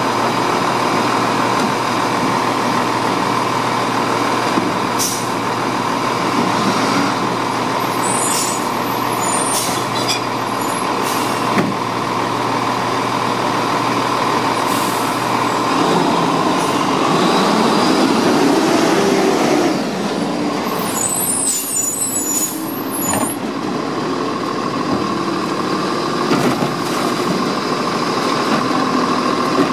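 Lodal side-loading garbage truck idling at the curb with a steady whine over the engine hum; the engine rises for a few seconds just past the middle. Several sharp clanks and short air hisses break in, the loudest clusters about a third of the way in and again about three quarters of the way in.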